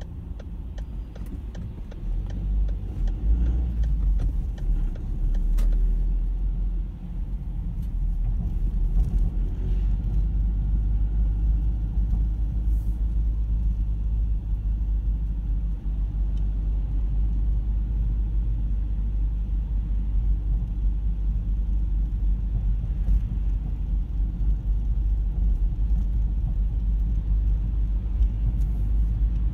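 A car being driven, heard from inside the cabin: a steady low rumble of engine and road noise. There are a few light clicks in the first several seconds.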